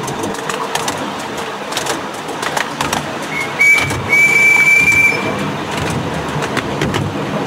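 Whistle of a 7.25-inch gauge miniature steam locomotive: a short toot about three seconds in, then a longer blast of about a second. Under it, the train runs along with its wheels clicking on the rails.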